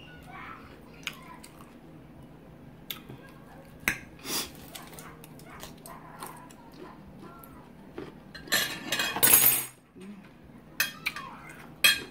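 Close-miked eating: a metal fork clicking against glass plates, with chewing between. A loud crackling burst lasts about a second, about three-quarters of the way through.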